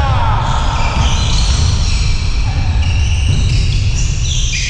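Basketball game in a gym: the ball bouncing on the court and players' voices near the start, over a steady low rumble.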